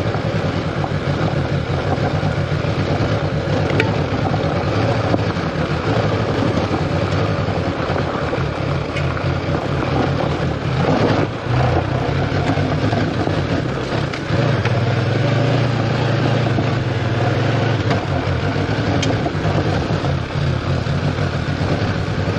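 Honda CB500X's parallel-twin engine running steadily while the bike is ridden, under a constant rush of wind and road noise. The engine note dips briefly about eleven seconds in and grows stronger from about fourteen seconds.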